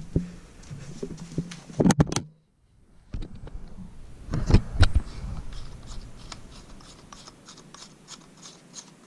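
Handling noises from light bulbs and a lamp fitting: scattered clicks, knocks and scraping, with the loudest knocks about two seconds in and again a couple of seconds later, then lighter ticking and rustling. A low hum stops about two seconds in, and the sound drops out entirely for a moment.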